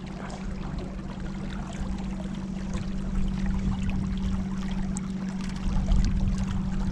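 Water rushing and splashing along a moving kayak, over a steady low hum.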